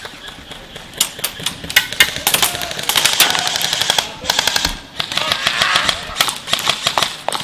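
Airsoft rifles firing rapid full-auto bursts: trains of quick sharp cracks, several bursts one after another, with brief pauses between them.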